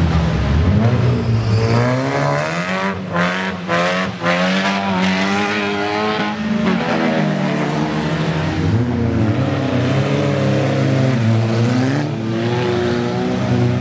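Engines of several wreck-race cars revving up and down as they race, their pitches rising and falling over one another.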